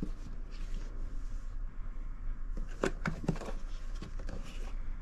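Hands handling a hard plastic pistol case, turning it over, with rubbing and a few sharp knocks of the plastic about three seconds in. A steady low hum runs underneath.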